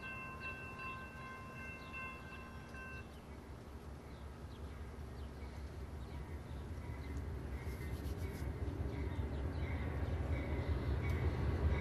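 Railroad grade-crossing warning bell ringing, then stopping about three seconds in. Under it, an approaching Amtrak diesel passenger locomotive rumbles, growing steadily louder.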